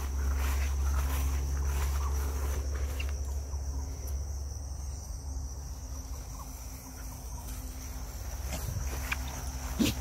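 A steady high-pitched insect trill over footsteps rustling through long grass and scrub, with a low rumble underneath and a sharp crack just before the end.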